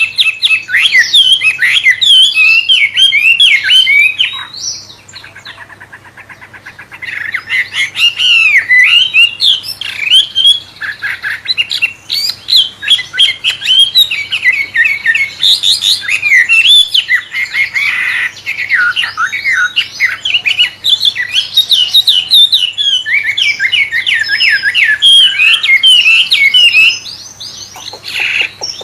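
A wambe songbird singing a long, fast run of varied sweeping whistles and chirps, a song likened to a murai's. About five seconds in it drops to a quieter buzzy trill for a couple of seconds before the loud song resumes.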